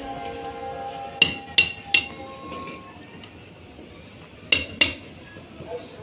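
Hand hammer striking metal on a brick wall: three quick ringing clinks, then two more a few seconds later.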